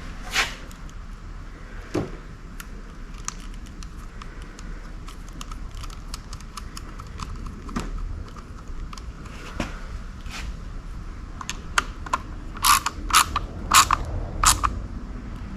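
Hand work on outboard-motor ignition wiring: scattered light clicks and scrapes of wire connectors and small tools being handled, then a quick run of about five sharper clicks near the end.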